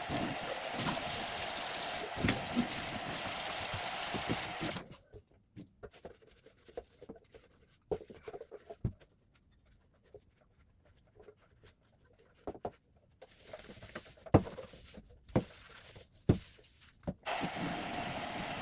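Water running steadily, stopping after about five seconds. Then a quiet stretch of scattered clicks and knocks, like items being handled, before the water runs again near the end.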